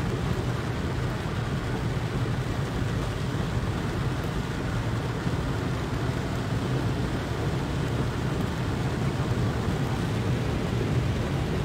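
Steady low rumble inside a moving car's cabin as it drives along a flooded road in the rain, mixing engine and tyre noise through the water with rain on the car.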